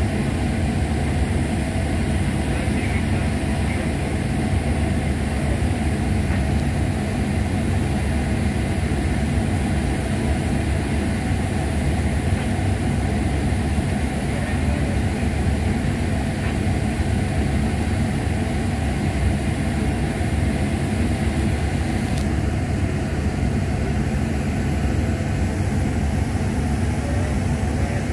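Steady low machinery drone with a constant hum, unbroken throughout.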